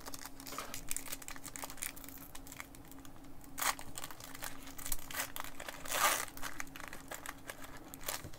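Pokémon card pack packaging crinkling and tearing as the next pack is opened by hand, with scattered small clicks and two louder rustles about three and a half and six seconds in.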